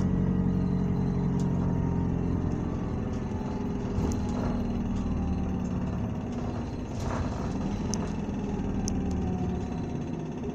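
Running sound of a 2019 Isuzu Erga city bus heard from inside the cabin: its four-cylinder diesel engine running steadily under way, with road noise and a few faint clicks and rattles.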